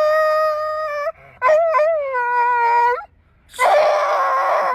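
A dog howling in three long calls, each about a second long with short breaks between them; the middle call sags slightly in pitch.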